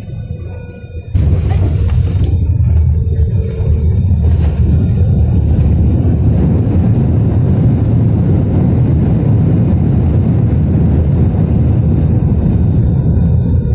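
Jet airliner's landing roll heard from inside the cabin: about a second in, a loud rumbling roar comes on suddenly and holds steady as the plane decelerates on the runway with its spoilers deployed.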